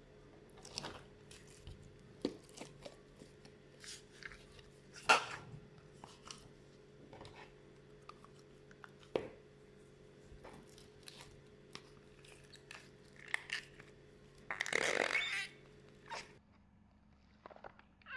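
Slime being worked by hand, giving scattered sticky clicks and crackles, with a sharp pop about five seconds in and a longer squishing burst near the end.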